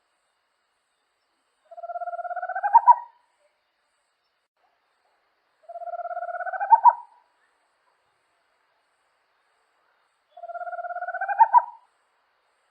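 A small owl singing: three calls about four seconds apart, each a quick trill that rises slightly in pitch and ends in two or three louder accented notes.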